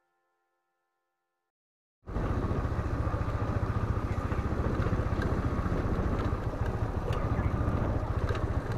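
A faint musical tone fades out, and after a moment of silence a riding motorcycle's engine and wind rush cut in abruptly about two seconds in. The mix is a heavy, fluttering low rumble with a few sharp clicks from the rough dirt track.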